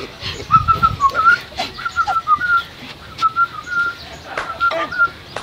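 A person whistling a wavering tune in short notes, with a few brief knocks near the end.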